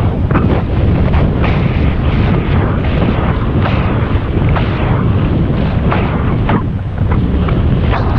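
Heavy wind buffeting the microphone of a camera on a moving bicycle: a loud, continuous rumble with irregular gusts.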